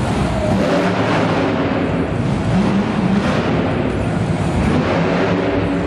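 Monster truck engine running loudly, its pitch rising and falling as the truck drives across the dirt arena floor.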